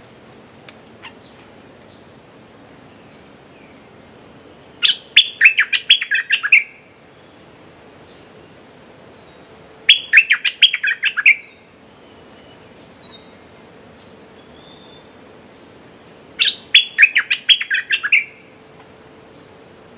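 Bulbul singing three short bursts of quick bubbling notes, about five seconds apart, with a few faint soft calls between them.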